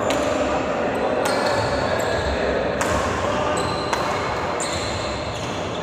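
Badminton rally: rackets striking the shuttlecock with sharp hits about every second or so, over a steady background din.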